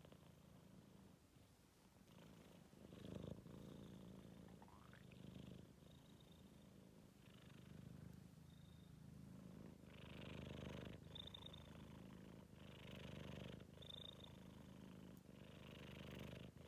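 Four-month-old Maine Coon kitten making a faint low rumble that swells with each breath, about every two and a half seconds; the owner can't tell whether it is snoring or purring.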